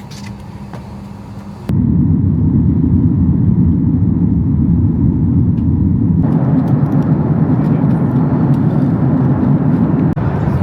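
Airliner cabin noise: a steady low rumble of jet engines and airflow. It jumps abruptly louder about two seconds in, and a wider hiss joins about six seconds in.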